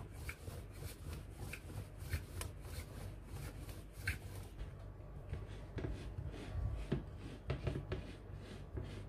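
Wooden rolling pin rolling out pizza dough on a countertop: a series of soft, repeated rubbing strokes that thin out after about four seconds, when hands start pressing the dough into the tray.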